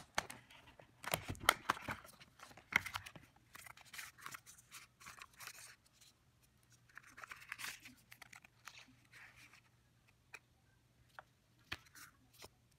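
Cardboard packaging handled by hand: a box insert and a card sleeve scraping and sliding, with light clicks and taps. Busiest in the first three seconds and again around seven seconds, then only scattered taps.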